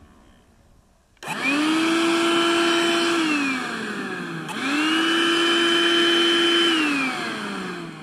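Battery-powered 18-volt vacuum cleaner switched on about a second in, its motor whining up to a steady pitch, then switched off and winding down in falling pitch. It is switched on again with a click midway, runs steadily, and winds down once more near the end.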